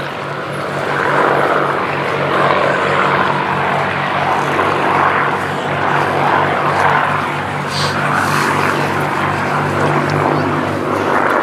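Two Supermarine Spitfire Mk.IX fighters flying past together, their Rolls-Royce Merlin V12 engines running steadily under a broad propeller noise that swells and fades in slow waves.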